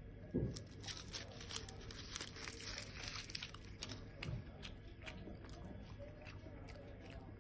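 Aluminium foil burger wrapper crinkling and crumpling in the hand, with a man chewing a mouthful of egg burger. A dull low thump comes about half a second in, and a softer one after about four seconds.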